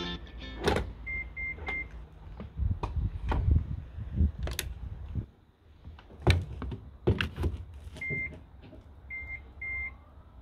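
Clicks and knocks of a charging connector being handled and plugged into a Nissan Leaf's charge port, with short electronic beeps at one pitch: three quick ones about a second in and three more near the end.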